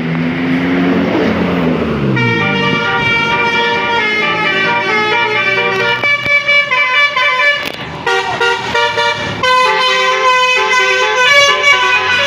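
Basuri multi-tone bus horn playing a telolet tune: several horn tones sound together and step through quick changing notes, with a short break about eight seconds in. Before it, for about the first two seconds, a vehicle's engine note falls in pitch.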